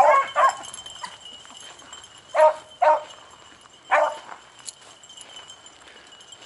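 A pack of beagles baying on a trail: a quick run of overlapping calls at the start, then two calls about two and a half seconds in and one more about four seconds in. The sparse calling goes with a line that seems hard to run on freshly dried ground.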